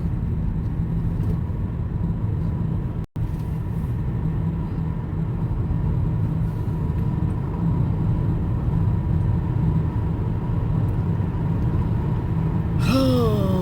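Steady low road rumble of a moving car heard from inside the cabin. The sound drops out for an instant about three seconds in.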